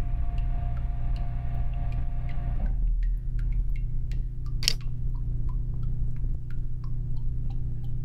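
A low steady drone with many small scattered clicks and drip-like ticks. A held higher tone over the drone cuts off about three seconds in, and a single sharp crack comes about five seconds in.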